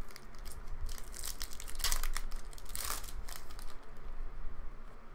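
Foil wrappers of Panini Mosaic football card packs crinkling and rustling as hands handle and tear open the packs, with two louder bursts of crinkling about two and three seconds in.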